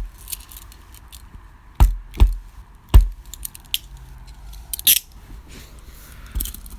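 Steel chained handcuffs being handled and smacked shut: three sharp metallic knocks about two to three seconds in, then a few fainter clicks.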